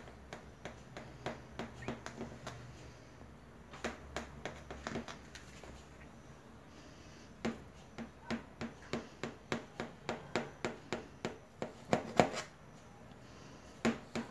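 A knife cutting a slice from a cake in a metal pan: a series of small clicks and scrapes as the blade saws down. There is a short pause midway, then a steadier run of about two clicks a second.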